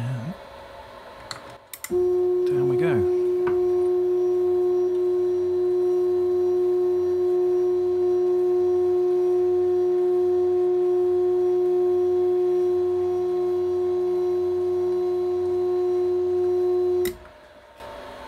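Drill press's motorized knee drive running at a steady speed as it moves the knee, a steady single-pitched whine that starts abruptly about two seconds in and cuts off abruptly near the end.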